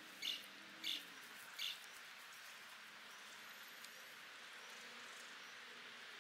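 A small bird gives three short, high chirps about two-thirds of a second apart in the first two seconds, over a faint steady outdoor hiss.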